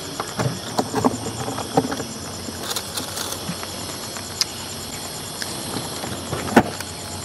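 Insects chirping in a steady, evenly pulsing high trill, with scattered light clicks and knocks of objects being handled; the sharpest knock comes about six and a half seconds in.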